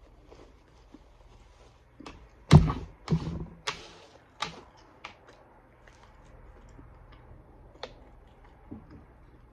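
A quick run of knocks and clicks from objects being handled at a table, the loudest thump about two and a half seconds in, followed by a few sharper clicks and a couple of faint ones near the end.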